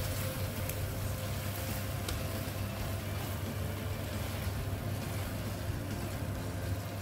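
Steady low mechanical hum with a thin constant tone and a spread of hiss over it, like a motor or fan running.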